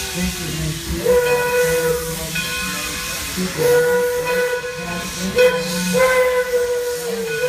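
Steam whistle of Detroit & Lima Northern Railway locomotive #7 sounding several long blasts with short breaks between them, over a steady hiss of steam.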